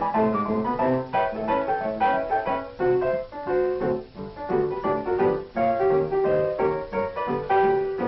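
Solo piano accompaniment playing a brisk run of short notes.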